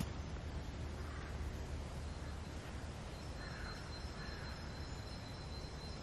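A crow cawing twice in the distance, about three and a half and four seconds in, over a steady low rumble. A thin high whistle holds from about halfway.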